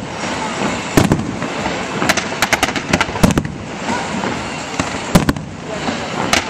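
Fireworks display: a string of sharp bangs and crackles, some in quick clusters, over a steady hiss.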